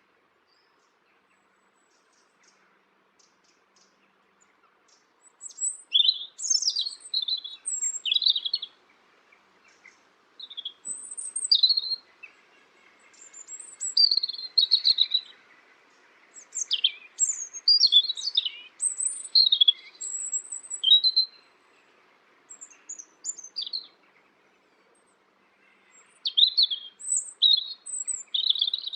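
A songbird singing: phrases of high, quick chirps and trills, each lasting one to three seconds, with short pauses between them, starting a few seconds in.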